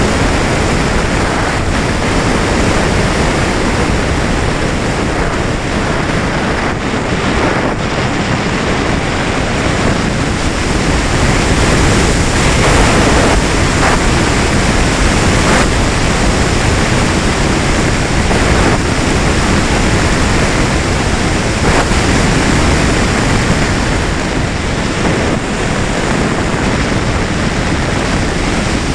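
Steady rush of airflow over the onboard camera's microphone on a Valenta Volcano R/C sailplane in gliding flight, with no motor tone heard.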